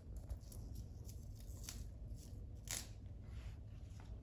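Faint rustling and short scrapes of a rim-stripe sticker being handled, the loudest scrape a little under three seconds in, over a low steady hum.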